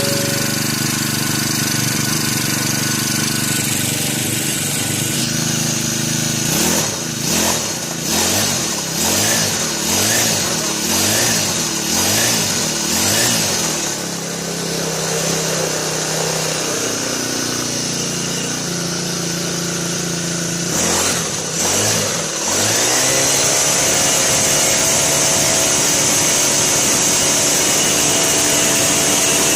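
Aspee Turbotech CHD T35 four-stroke brush cutter engine running, now starting and running after its shorted ignition coil was replaced. It runs steadily, then is revved up and down about once a second for several seconds, settles back to idle, and near the end is opened up to a high steady speed.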